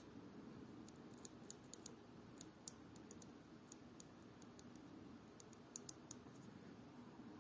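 Faint, sharp little clicks of fine steel watchmaker's tools touching the small parts of a vintage Omega cal.268 watch movement during reassembly, coming irregularly in small clusters over a low room hum.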